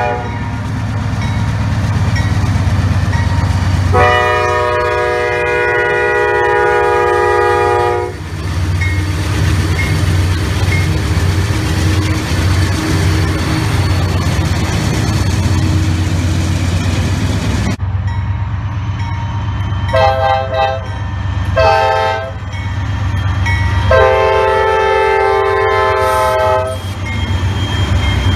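Diesel freight locomotives passing close by with a steady low engine rumble, sounding their multi-tone air horns. There is one long blast about four seconds in, then after an abrupt change in the sound, two short blasts and a longer one near the end.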